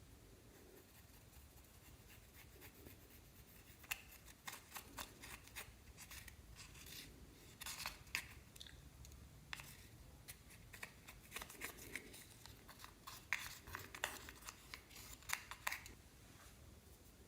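Clear slime being worked by hand, giving off quick, irregular sticky clicks and pops that start about four seconds in and go on until near the end.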